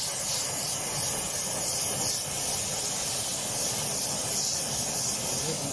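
Gas torch flame hissing steadily as it heats the clamped cast-iron body of a bent Record 010 rebate plane, softening it so the bend can be pulled straight.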